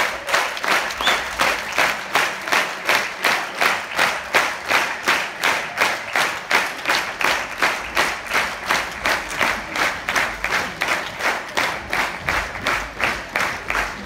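Theatre audience applauding in unison, a steady rhythmic clap at about two to three claps a second.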